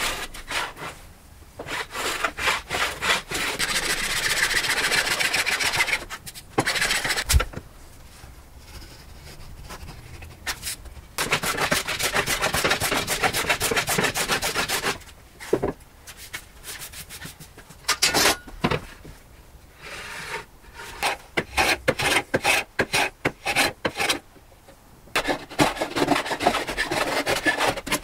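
Hand plane shaving walnut, stroke after stroke in runs of several seconds with short pauses between.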